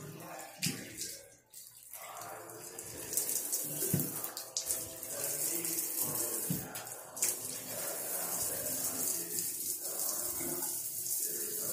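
Water running in a tiled bathtub, with a steady hiss of shower spray that comes up about three seconds in and keeps on. A few short knocks sound along the way.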